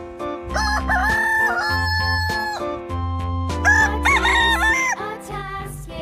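Rooster crowing twice, each a long cock-a-doodle-doo that rises, holds and falls, over background music with a steady beat.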